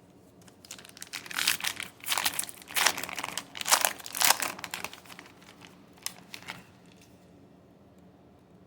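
Crinkly wrapper of a trading-card pack being torn open and crumpled, in a run of rustling bursts over about six seconds, loudest in the middle.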